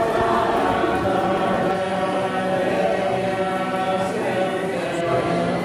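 Several voices chanting a mantra together in long, held notes.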